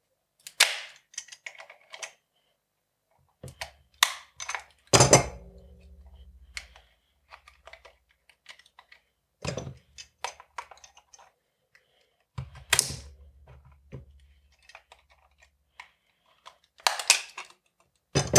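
Plastic case of a replacement Sony NP-F970 camera battery cracking and snapping as water-pump pliers squeeze and pry its glued seam apart: a series of sharp cracks and clicks in clusters a few seconds apart, the loudest about five and thirteen seconds in.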